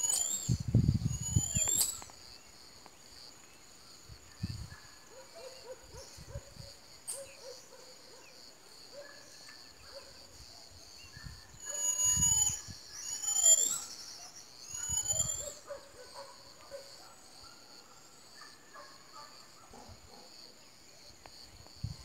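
Marmosets calling: high, thin whistles that bend up and down, a cluster in the first two seconds and three more groups about halfway through, over a steady high-pitched hiss. Low rumbles come with the loudest moments.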